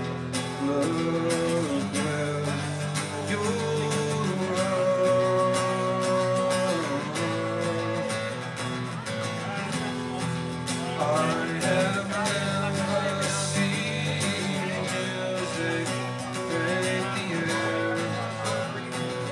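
Acoustic guitar playing a song live, strummed in a steady rhythm.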